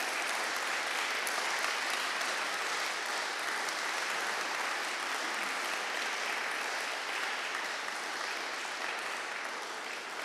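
An audience applauding steadily, easing off slightly near the end.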